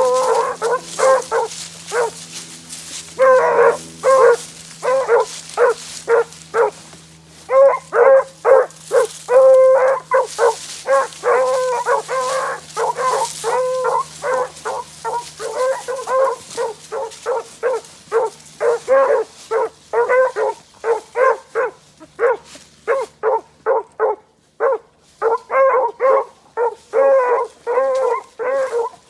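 Two 15-inch male beagles baying as they trail a rabbit: rapid, repeated short pitched calls with a couple of brief lulls.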